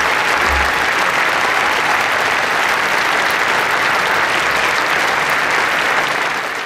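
Large outdoor audience applauding, a dense steady clapping that fades away near the end.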